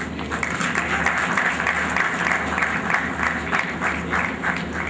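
Audience applauding: a dense patter of many hands clapping that thins to a few scattered claps near the end.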